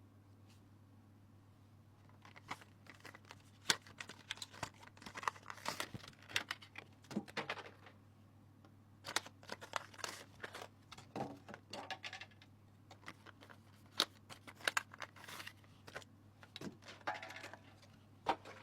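Hands handling PC parts and their packaging: irregular bursts of crinkling and rustling with sharp clicks and taps, starting about two seconds in, over a steady low hum.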